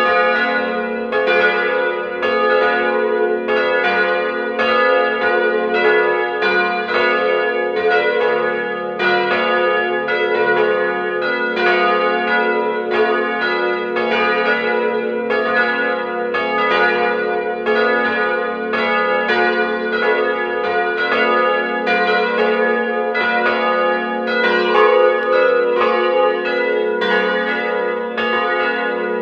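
The church's peal of three bells, cast by Ulrich & Weule of Apolda (900, 550 and 450 kg), ringing together for a service. Their strokes overlap in an unbroken stream, about two a second, over a lasting hum.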